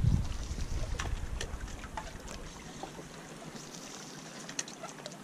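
Small waves lapping and trickling among shoreline rocks, with scattered light splashes and ticks. Wind rumbles on the microphone at the start and dies away over the first few seconds.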